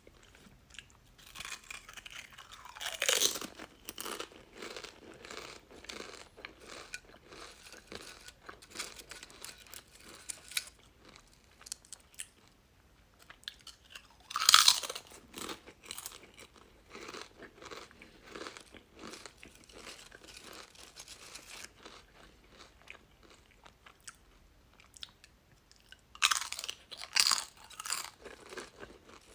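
Someone eating chips: loud crunching bites about three seconds in, near the middle and twice near the end, with steady crackly chewing in between.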